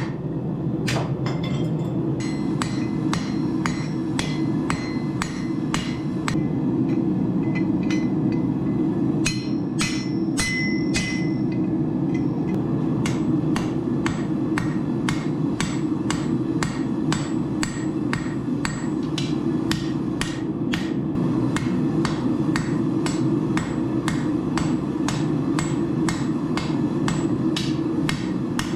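Hammer blows on steel being forged on an anvil, a steady run of about two to three strikes a second. A few strikes ring out with a clear metallic tone about ten seconds in. A steady low noise runs underneath.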